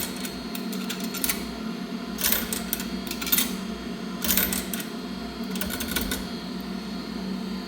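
Quarters being fed into a coin-operated dryer's coin slot, giving short clusters of metallic clicks and rattles about five times, over a steady low hum. The machines are refusing the coins.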